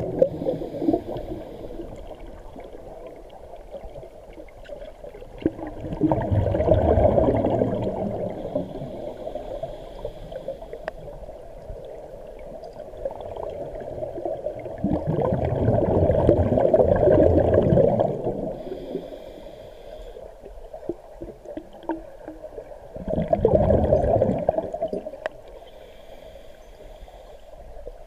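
Scuba diver breathing through a regulator underwater: three bubbling exhalations, each two to three seconds long and about eight seconds apart, with a faint hiss of inhalation between them.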